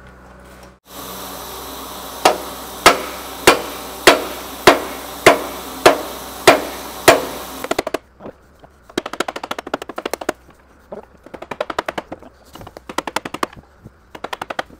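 Hammer blows on a John Deere dozer transmission case: nine sharp, evenly spaced strikes, about one every 0.6 s, each ringing briefly, knocking the cover loose from the shafts. They are followed by quicker runs of light rattling taps in short clusters.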